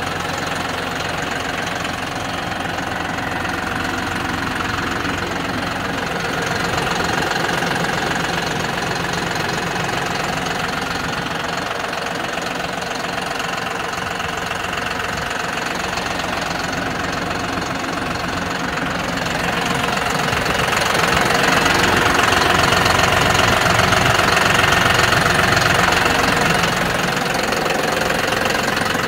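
John Deere 5075E tractor's diesel engine idling steadily, louder for a few seconds about twenty seconds in.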